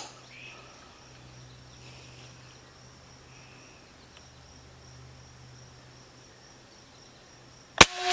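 A steady high insect drone, then near the end a single sharp crack from a Benjamin Bulldog M257 .257-calibre PCP air rifle firing a slug, followed by a brief ringing tone as the shot dies away.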